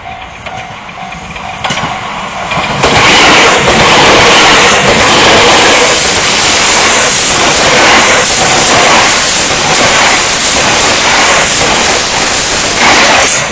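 Japanese level-crossing bell ringing in quick, evenly spaced pulses. About three seconds in, a 287 series electric limited-express train, nine cars long, rushes through the crossing, loud, with a repeated clatter of wheels that drowns the bell.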